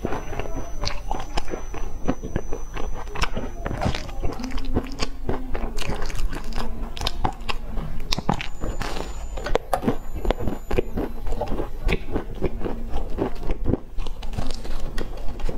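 Close-miked biting and chewing of a flaky, sesame-topped pastry: a dense run of crisp, crackly crunches as the flaky layers break.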